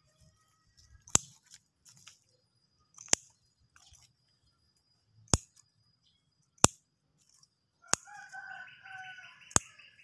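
Six sharp clicks, unevenly spaced a second and a half to two seconds apart, and a bird calling for nearly two seconds near the end, over a faint steady high-pitched whine.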